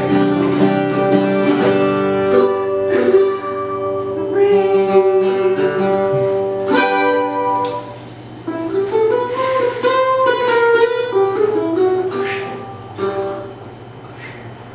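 Live acoustic guitar accompaniment playing sustained chords, dying down about thirteen seconds in.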